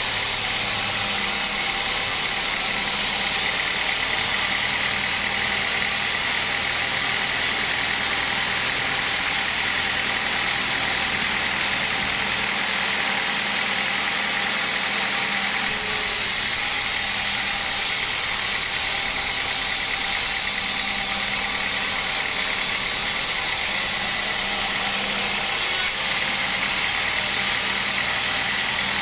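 Vertical band sawmill running steadily while sawing teak planks, a constant mechanical drone with a steady high ring over it.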